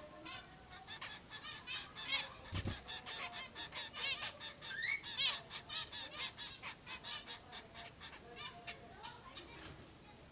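Zebra finch chicks begging to be fed: a rapid run of short, high calls, about five a second. It starts about a second in and dies away near the end, with a soft low bump about two and a half seconds in.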